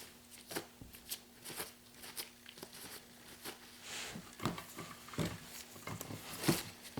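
Scattered light clicks and knocks of metal hand tools being handled, a few louder knocks in the second half, over a faint steady hum.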